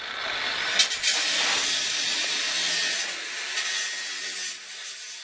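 Nylon rope being drawn through the eyelets of a plastic stretcher tarpaulin as it is laced, giving a long rubbing rasp that starts with a click about a second in and fades away near the end.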